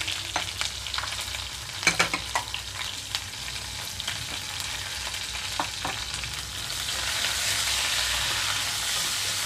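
Sliced onions sizzling in hot oil over a tempering of mustard seeds, cumin and dried red chillies, with scattered sharp crackles and pops, most around two seconds in. The sizzle grows louder from about seven seconds in as the onions are stirred.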